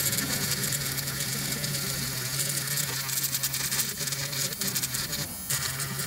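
Steady buzz of a small motorised tool, with fine scratching, as the varnish coating is ground off around a relay's solder pins on a circuit board. The buzz cuts out briefly twice near the end.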